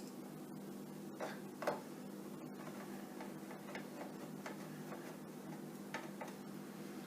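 A screwdriver driving the small screws that hold a DMX card into a metal LED light fixture. There are two sharper clicks about a second in, then a run of light ticks, about four a second, and two more clicks near the end.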